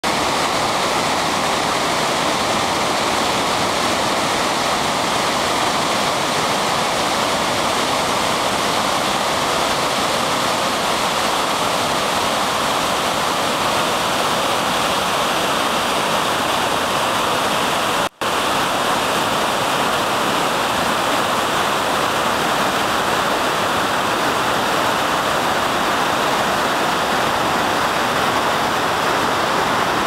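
River water rushing steadily over a waterfall and rocky rapids, a loud, even sound of churning whitewater. It is cut off for a split second a little past the middle.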